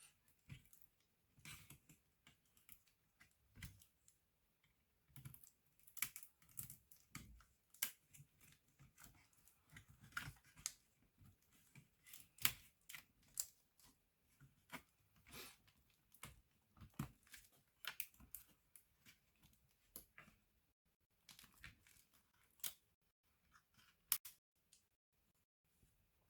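Irregular small clicks, taps and light scrapes of a Lenovo B570e laptop being worked on by hand, its plastic case and parts knocking against small tools.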